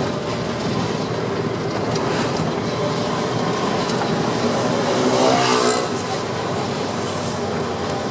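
A 9200 truck's MWM X12 diesel engine running while driving, loud because the exhaust has no tailpipe extension. Its pitch rises and then falls once about five seconds in.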